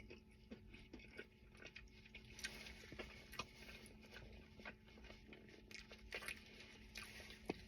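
Faint chewing and mouth sounds of a person eating ribs, with scattered soft clicks and one sharper click near the end.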